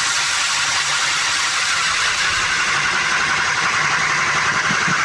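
Power ice auger drilling a hole through lake ice, running steadily without a break, with the even grinding of the blades cutting ice.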